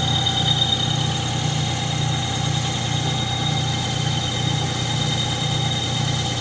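Metal lathe running through a roughing cut, taking about a tenth of an inch per pass: a steady motor hum that pulses about twice a second, with a thin high whine over it.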